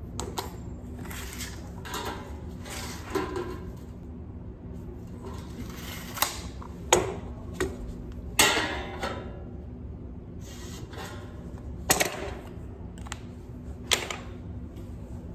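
Handling noise from work gloves and tools in a tool belt: quiet rustling with about five sharp metallic clinks scattered through.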